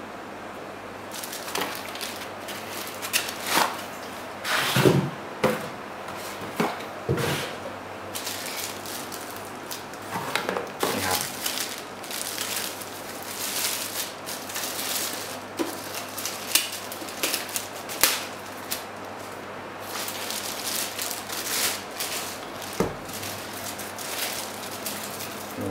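Thin plastic bag wrapped around a dual hard-drive enclosure crinkling and crackling irregularly as it is handled and lifted out of its foam packing, starting about a second in. A few soft knocks from the enclosure being handled come through.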